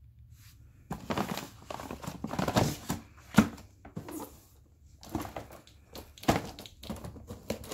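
Firework packaging being handled: cardboard and plastic rustling and crinkling, with scattered knocks and one sharp knock about three and a half seconds in.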